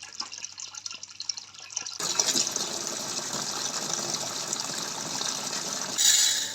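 Water running from a tap. Light clicks and drips come first, then a steady gush starts about two seconds in and grows louder briefly near the end.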